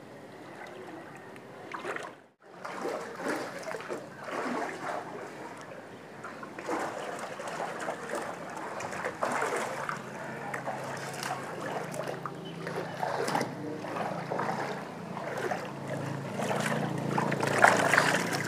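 Water splashing and sloshing as a person wades through a shallow koi pond and sweeps a hand net through it. It cuts out briefly about two seconds in. Near the end it grows louder as netted koi thrash in the water.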